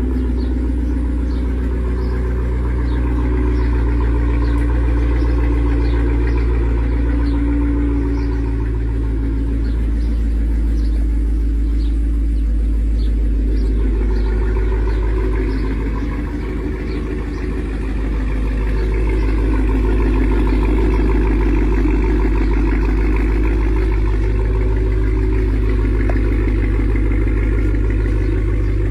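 Cadillac Escalade ESV V-Series' supercharged 6.2-litre V8 idling after a cold start, its pitch wavering slightly, with a brief dip in level about two-thirds of the way through.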